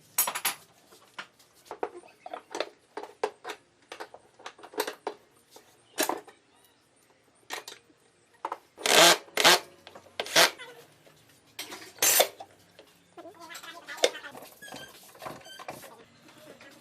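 Irregular knocks and clicks of workpieces and tools being handled, with a few sharper, louder strikes about nine, ten and twelve seconds in, and a stretch of rubbing or scraping near the end.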